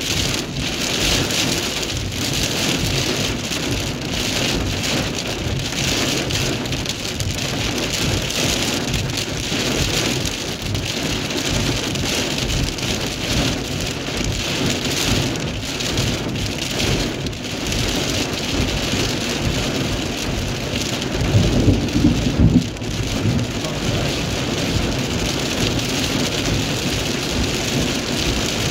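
Heavy rain and wind beating steadily on a car, heard from inside the cabin during a severe thunderstorm. A louder low rumble comes about three quarters of the way through.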